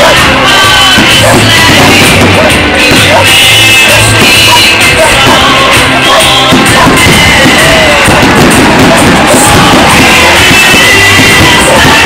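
Loud music with singing and a steady bass beat.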